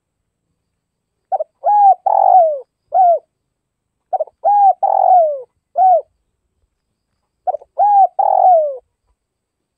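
Spotted dove cooing: three phrases, each a few short notes and a longer falling coo, about three seconds apart.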